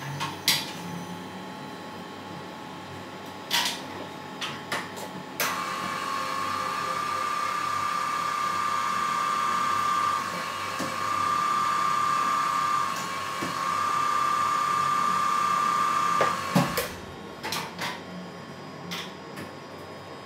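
Drill press motor running with a steady whine for about eleven seconds, starting about five seconds in, drilling metal out of a Mercedes-Benz V8 crankshaft at its unbalanced spot to correct the balance. Sharp clicks and knocks of the machine's handles and fittings come before and after it.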